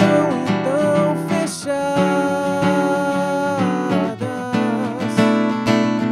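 Acoustic guitar strummed and picked, with a man singing over it in long, wavering held notes.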